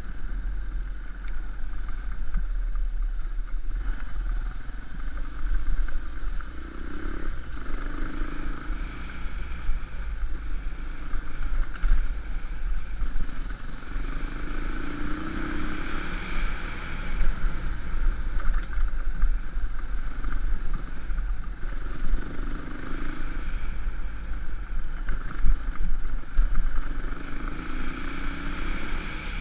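Dirt bike engine running as it is ridden over a rough trail, its pitch rising again and again as the throttle is opened, over a constant low rumble.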